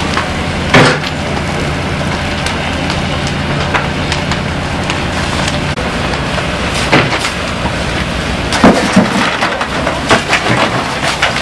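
Burning timber roof frame crackling, with sharp loud cracks and snaps of the wood, one about a second in and several more in the last few seconds, over a steady engine hum.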